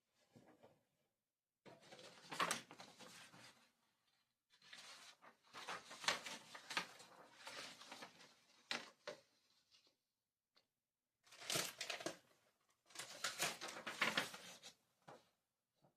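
Paper or packing material being handled: rustling, crinkling and tearing in several bursts with short pauses between.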